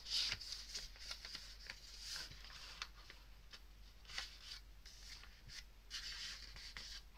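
A sheet of printer paper being folded by hand on a tabletop: faint rustling, with a few brief swishes and small crinkles as the paper is moved and the crease pressed down.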